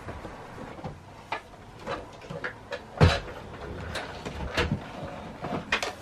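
Knocks, bumps and clicks of a sewing machine being got out and handled, with a loud thump about three seconds in and another at the very end.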